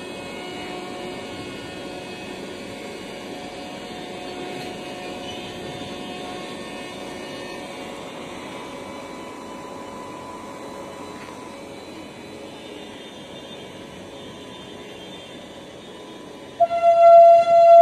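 Passenger train's coaches rolling past, a steady running noise of wheels on rails. About a second before the end a train horn sounds loudly, one held tone.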